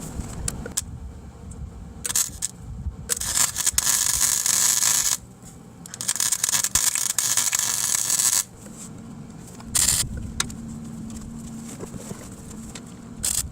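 Eastwood MIG 135 welder arc crackling on rusty exhaust steel in several bursts of a few seconds each, stopping and starting between them. The wire speed is set high, feeding too much filler.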